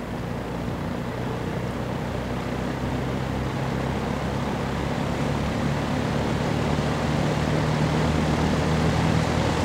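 Vintage Dominion model 2079 20-inch box fan running on low speed after being switched on, its 1.7 amp Fasco motor humming and the blades moving air. It grows steadily louder and slightly higher as the heavy blades come up to speed. The motor is dirty and has not been oiled.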